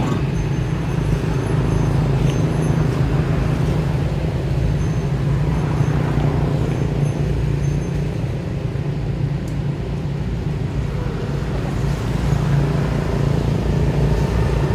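Steady low rumble of motor vehicle engines, a little quieter in the middle.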